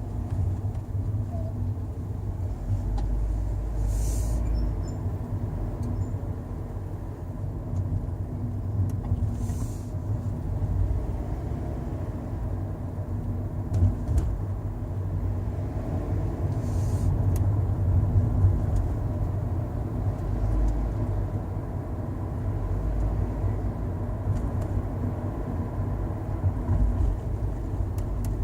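Road and engine rumble inside a Toyota Sienta's cabin, broken by three short bursts of hiss and a few faint clicks several seconds apart. This is the intermittent noise from the car audio that began after the head unit was replaced, which the owner suspects is audio-system interference or a badly installed head unit.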